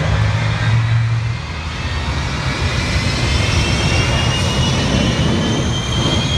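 Jet engines of the Shockwave jet truck running loud and steady, with a high whine that slowly rises in pitch.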